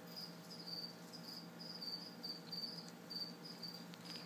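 A cricket chirping, short high chirps repeating a few times a second, over a faint steady hum.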